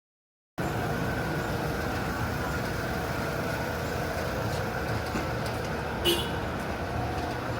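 Steady running drone of a vehicle or engine with a faint steady whine, cutting in abruptly about half a second in, with a brief click about six seconds in.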